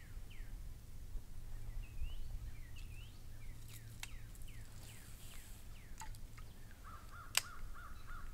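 Small birds giving short, falling chirps over a steady low wind rumble on the microphone. A sharp click comes a little after seven seconds. Near the end a call of even pulses starts up, about three a second.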